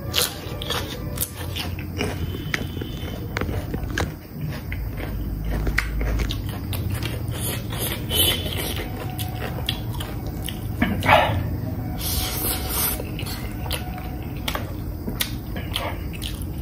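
A person eating close to the microphone: chewing a bite of cucumber, with a fork and spoon clicking and scraping on the plate while twirling noodles, and a few short noisy slurps.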